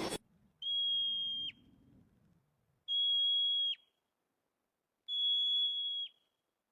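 Three long, steady whistled notes, about two seconds apart, each held on one high pitch and ending in a quick downward slur: a bird's whistled call.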